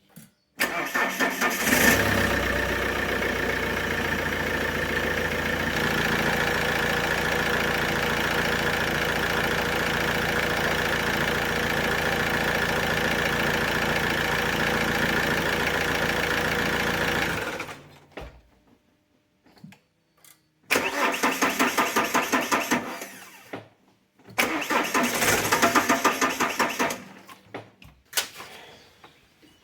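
Alfa Romeo 147's 1.9 JTD diesel engine running steadily, then stopping about two-thirds of the way in. After a pause it is cranked twice, each time for about three seconds with an even pulsing starter rhythm, and it does not fire: the crank-no-start-when-hot fault.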